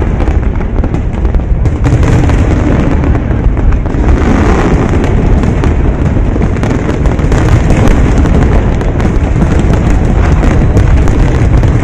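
Loud aerial firework shells exploding in a dense, continuous barrage, the bursts overlapping with no pause between them.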